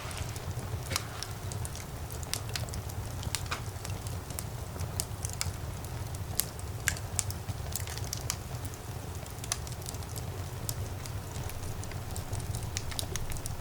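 Fire burning in a fireplace, crackling with frequent irregular sharp pops over a low steady roar; the loudest pops come about a second in and near the middle.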